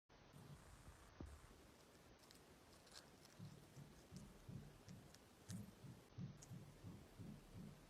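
Near silence, with faint scattered clicks and, from about halfway in, soft low pulses repeating about three times a second.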